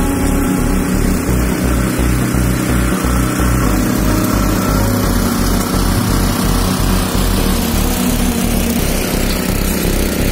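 Petrol or diesel engine of a walk-behind power tiller with metal wheels running steadily with a fast, even chugging, pulling a hilling plough through hard, stony soil between soybean rows.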